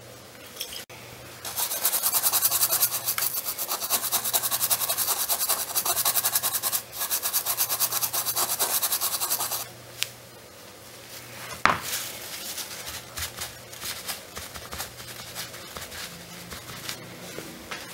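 Cotton scrubbing quickly back and forth over a circuit-board memory chip, cleaning away flux residue after soldering. The scrubbing stops after about ten seconds, then comes a sharp click and lighter, irregular rubbing.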